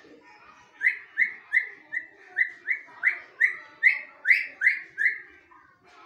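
African grey parrot giving a rapid series of about a dozen short whistled notes, roughly three a second, each dropping slightly in pitch.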